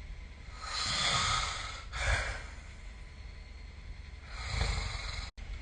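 A sleeping person snoring: a long noisy breath about half a second in, a shorter, louder one straight after it at about two seconds, and another long one about four and a half seconds in. The sound drops out abruptly for an instant near the end.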